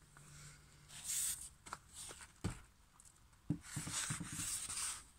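Paper and cardboard being handled and shifted: rustling and rubbing in two stretches, with a few light knocks in between, as a paperback book is moved aside from a large handwritten sheet on a board.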